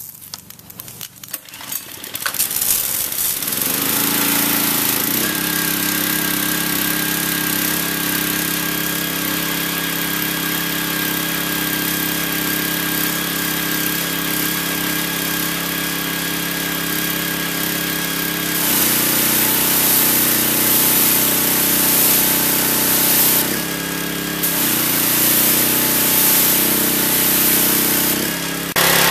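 Workforce pressure washer's 163 cc overhead-valve gas engine, started on the choke, catches about two seconds in and settles into a steady run. From about nineteen seconds the water jet from the wand joins it with a loud hiss against the concrete, breaking off briefly around twenty-four seconds.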